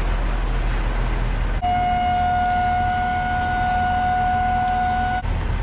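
Car hauler's idling truck engine, with a steady high whine from the hydraulic trailer deck being adjusted. The whine starts abruptly about a second and a half in, holds one pitch for about three and a half seconds, and stops abruptly near the end.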